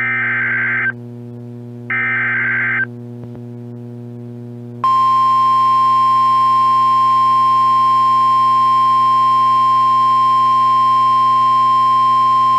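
The last two of three SAME digital header bursts of an emergency weather alert, one-second data squawks about a second apart, over a steady low hum. About five seconds in, after a short pause, the single steady NOAA Weather Radio 1050 Hz warning alarm tone begins and holds.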